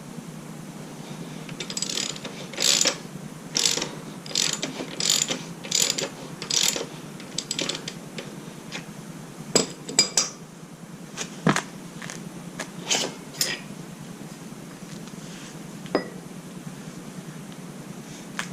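Socket ratchet wrench swung in quick strokes, each stroke a short burst of pawl clicking, about one every three-quarters of a second for several seconds. A few sharp metal clicks and knocks follow.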